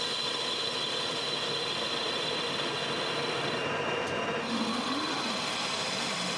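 Metal lathe running, a carbide tool cutting a spinning flywheel: a steady machining noise with a constant high whine.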